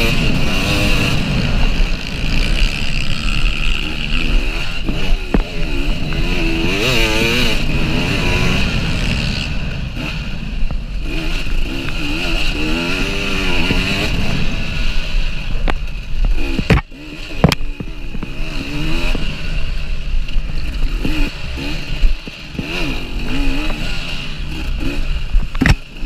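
KTM EXC 300 two-stroke single-cylinder enduro motorcycle engine revving up and down as the bike is ridden hard along a dirt track, with rattling from the bike over the bumps. Several sharp knocks come about two-thirds of the way through, where the engine briefly drops off, and another comes near the end.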